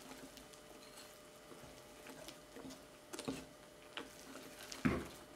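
Wire whisk stirring thick batter in a glass bowl, faint, with scattered light clicks of the whisk's wires against the glass and a louder clack near the end.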